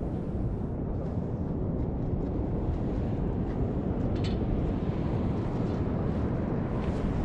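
Wind buffeting the microphone, a steady low rumble, with a faint click about four seconds in.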